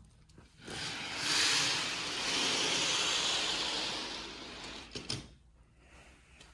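Sliding glass patio door rolling along its track for a few seconds, then a few sharp clicks about five seconds in as it shuts and latches.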